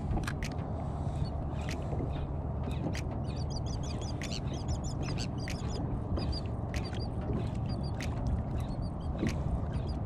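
Wind rumbling on the microphone and water lapping against a plastic kayak hull, with many irregular small clicks and clusters of short high squeaks.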